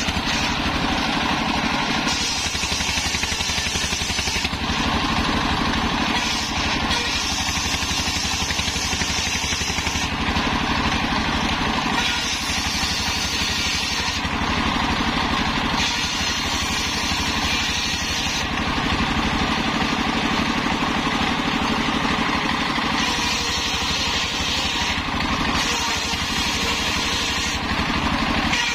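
Red horizontal single-cylinder diesel engine running steadily, belt-driving a large circular saw that rips waru logs into planks. The blade's cutting noise rises and falls with each pass through the wood, every few seconds, over the engine's even running.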